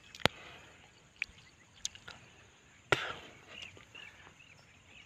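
A few isolated sharp clicks and crunches close to the microphone over a faint outdoor hush, the loudest about a quarter second in and near three seconds in: a person chewing guava and handling something right by the phone.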